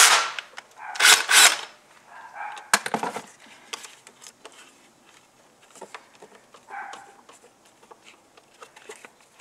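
Cordless drill/driver running in two short spurts, the second about a second in, as it backs the nut off the 12-volt battery's positive terminal; afterwards only faint clicks and knocks of the terminal and cable being worked loose by hand.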